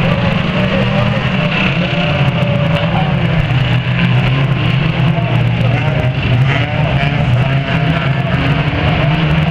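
Engines of a pack of banger racing cars running hard around an oval track in a loud, steady drone. The engine notes rise and fall as the cars accelerate and ease off.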